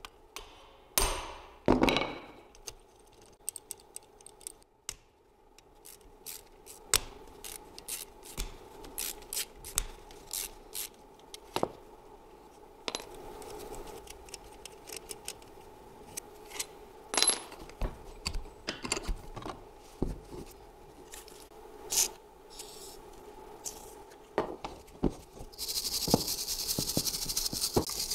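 Sharp metal knocks, clicks and clinks as a car alternator is taken apart by hand, its housing screws worked loose and its metal parts handled. Near the end a steel wire brush starts scrubbing the alternator's housing with a steady, harsh hiss.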